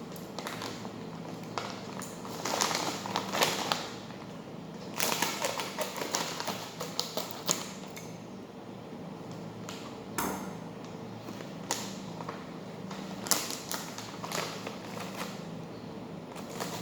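Irregular taps, clicks and rustles of food containers and plastic packaging being handled and set down, coming in bunches with short pauses between.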